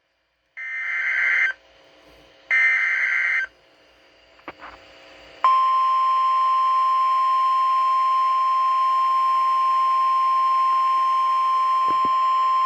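NOAA Weather Radio warning alert: two short, buzzing digital SAME header bursts, then about five seconds in the steady single-pitch 1050 Hz Warning Alarm Tone starts and holds, the signal that a warning broadcast is about to be read.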